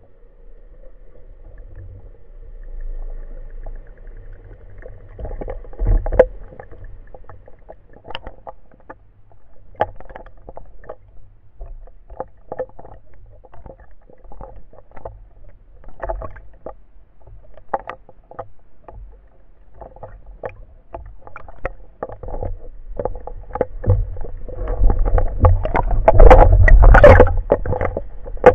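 Water noise heard underwater, with many scattered sharp clicks and knocks over a low rumble. It grows louder and busier near the end.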